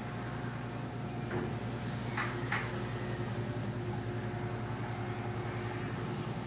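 Steady low engine drone of passing vessels, with a few faint clicks about one to two and a half seconds in.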